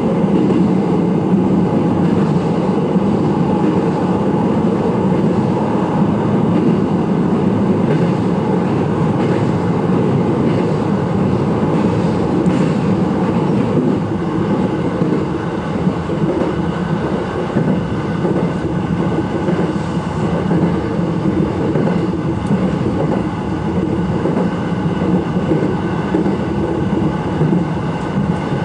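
Electric commuter train running along the line, heard from inside the front car: a steady rumble of wheels on rail and running gear, easing slightly in loudness about halfway through.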